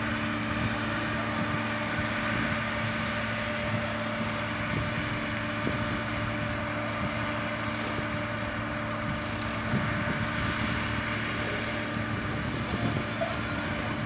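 Hidromek MG 330 motor grader's diesel engine running steadily under load as the grader moves slowly over loose soil, a constant low hum.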